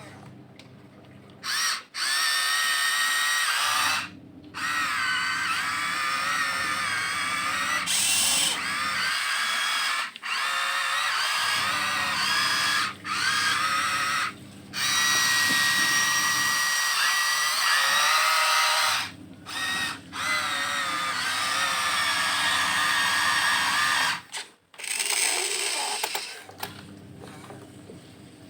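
Electric motors and gearboxes of a Huina 1592 RC excavator whining in runs of a few seconds, starting and stopping as the arm, bucket and tracks are worked. The pitch wavers as the load changes while it digs.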